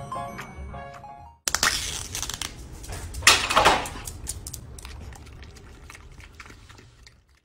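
A plinking music melody, cut off about a second and a half in, followed by the crackling and crinkling of a small plastic food cup and its lid being handled, loudest about three seconds in and then fading.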